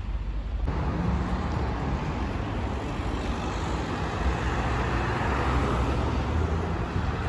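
Road traffic: cars driving past on a town street, a steady rumble of engines and tyres that swells as vehicles go by.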